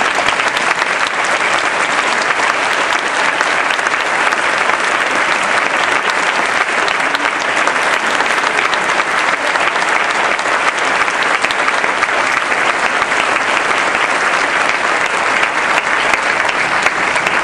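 A large audience applauding: a steady, sustained round of clapping.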